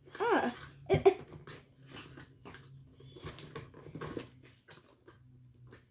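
Cardboard doll box being pulled open by hand: scattered clicks, rustles and small tears of the cardboard flaps, after a short wordless rising-and-falling exclamation from a child near the start.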